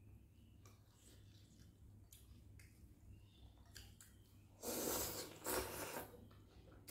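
A person slurping rice noodles off chopsticks, two loud slurps about four and a half seconds in, after a few faint clicks.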